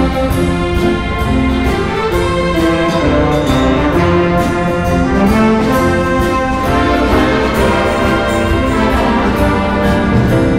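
A symphony orchestra playing, with strings, brass and trumpets to the fore, over a steady beat of short drum-kit strokes.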